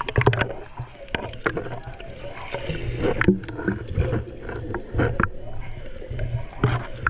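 Muffled water noise picked up by a camera held in and just under the sea surface: sloshing and bubbling, with frequent short clicks and knocks against a low rumble.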